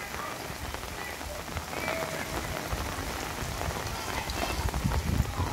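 Steady rain falling, an even hiss of drops, with a low rumble building near the end.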